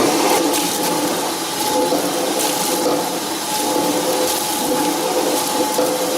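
Fruit-processing machinery on a juice production line running with water or juice rushing and splashing through it, under a steady mechanical hum.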